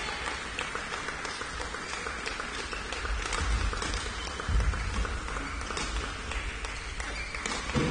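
Badminton doubles rally in a sports hall: irregular sharp taps of racket strings striking the shuttlecock, with players' footsteps thudding on the court over a steady hall noise.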